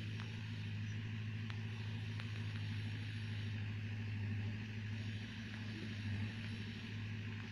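Diesel engine of a small tracked earthmoving machine running steadily at work, a low even hum.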